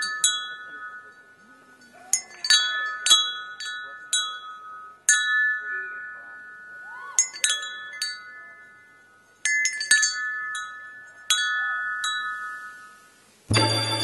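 Chimes struck in small clusters, each strike ringing out clearly and fading over a second or two, as the intro to a dance routine's music. Near the end, full music with a deep bass comes in.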